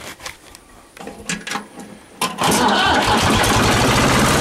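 Ford 3000 tractor engine being started: a few clicks and knocks, then the engine catches about two seconds in and settles into a steady idle.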